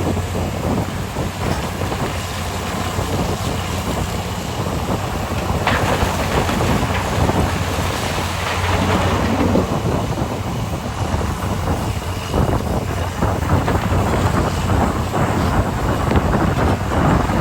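Diesel engines of a Komatsu PC800 mining excavator and HD465 haul trucks running with a steady low rumble, mixed with wind buffeting the microphone. A brief sharp knock comes about six seconds in.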